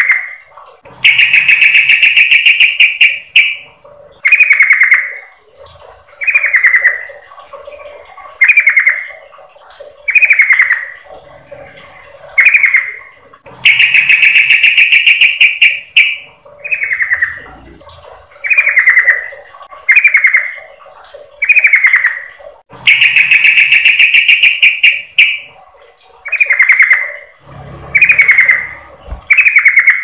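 Yellow-vented bulbul (trucukan) calling: short, clipped calls repeated about every one and a half to two seconds, broken three times by a longer, louder phrase. It is a bird-trapping lure recording, presented as a female calling in a male.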